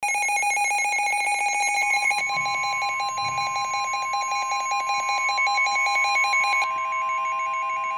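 Weather radio alert tones: a fast-pulsing electronic beep over several steady high tones, joined about two seconds in by a long steady tone just above 1 kHz, the NOAA Weather Radio warning alarm tone. The pulsing drops away near the end while the steady tone holds.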